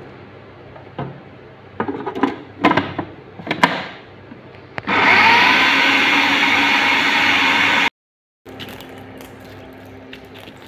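Sharp plastic knocks and clicks as the food processor bowl and lid are handled, then the electric food processor runs loud and steady for about three seconds, blending boiled chicken and egg into a filling. After an abrupt cut, a quieter steady low hum with a few faint clicks.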